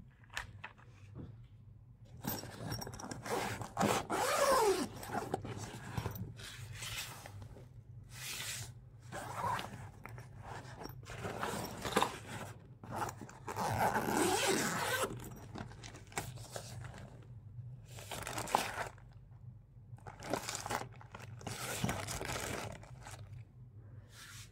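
Zippers on a camouflage nylon soft crossbow case being pulled along in a series of strokes, each one to two seconds long, a few of them sliding up or down in pitch.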